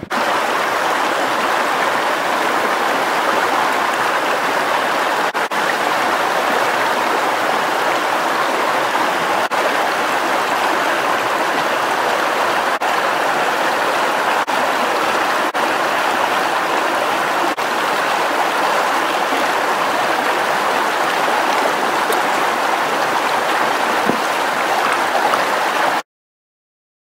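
Shallow mountain stream rushing over stones close by: a steady, loud rush of water that cuts off suddenly near the end.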